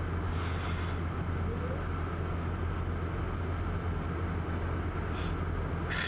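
Steady low drone of a car's engine and road noise heard inside the cabin, with a man yawning over it: breathy hisses near the start and again about five seconds in.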